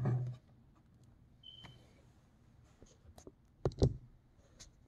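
Scattered light clicks and knocks of hands handling a laptop, with a louder knock a little before the end.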